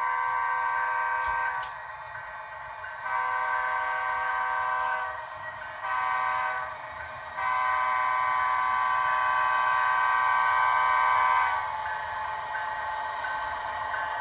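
HO scale Canadian Pacific diesel locomotive's sound decoder blowing its horn in the grade-crossing pattern: two long blasts, a short one, then a long one held about four seconds. A steady diesel engine sound runs beneath it.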